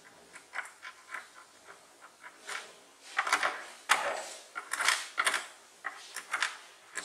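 Hand screwdriver driving screws into a plastic TV back cover: light clicks at first, then louder scraping and rubbing from about three seconds in.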